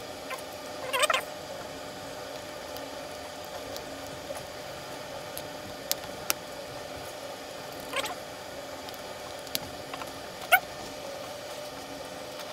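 Rubber tires of a small robot car kit squeaking as they are pressed onto the plastic shafts of the yellow DC gear motors. There are a few short squeaks, the loudest shortly before the end, and light clicks as the acrylic chassis is handled, over a steady background hiss.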